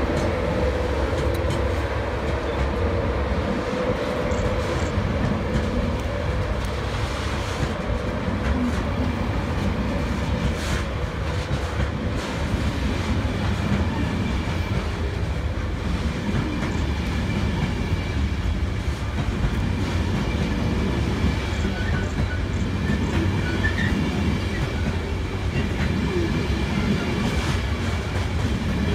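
An LNER Class 91 electric locomotive and its Mk4 coaches running past close by. The steady rolling of steel wheels on rail clicks over rail joints and swells and eases every few seconds as each coach's bogies go by. A steady hum from the departing locomotive fades out in the first few seconds.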